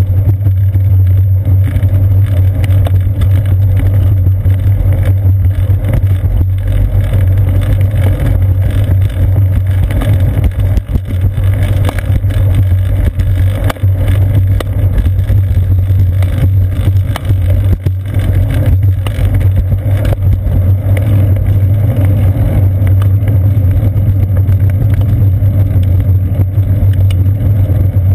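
Loud, steady low rumble of a moving bicycle picked up through a seat-post-mounted GoPro Hero 2: wind and road vibration on the camera.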